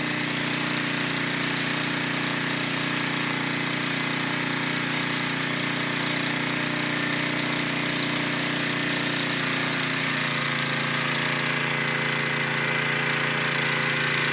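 A small engine running steadily at a constant speed; its tone shifts slightly about ten seconds in.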